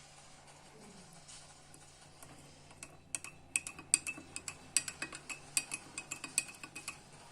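Metal teaspoon clinking repeatedly against a glass of hot milk as honey is worked in. The sharp, ringing clinks come irregularly, several a second, starting about three seconds in.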